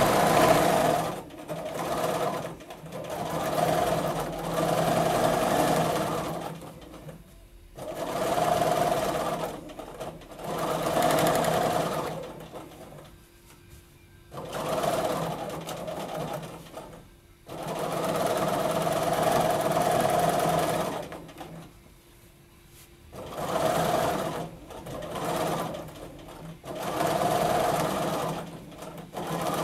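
Bernina domestic sewing machine stitching free-motion quilting, running in bursts of one to four seconds with short stops between them, about ten runs in all.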